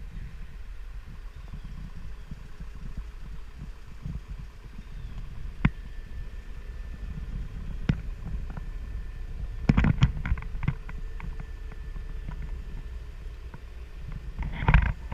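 Cat 305E CR mini excavator's diesel engine running with a steady low rumble, broken by sharp knocks: single ones every couple of seconds, a quick cluster about two-thirds of the way in, and a louder one near the end.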